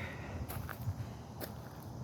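Footsteps: a few steps heard as short, light clicks and low thuds over a faint background rumble.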